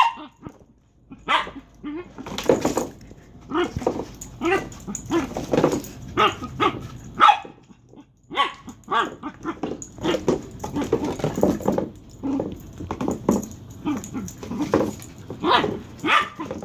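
Dachshund making a long run of short, odd vocal sounds, about one or two a second, which the owner likens to a chicken.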